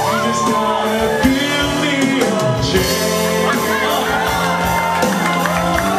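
Live band playing a pop-rock song, with drums keeping a steady beat and a melody line that bends in pitch over the chords.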